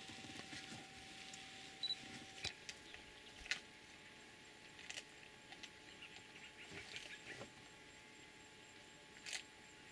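Faint outdoor background hiss with about half a dozen sharp, isolated clicks scattered through it.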